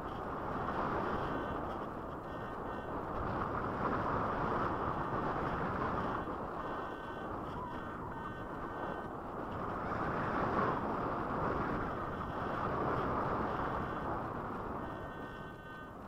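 Air rushing over the onboard camera of a Django BS radio-controlled slope glider in flight: a steady rush of wind that swells and eases several times.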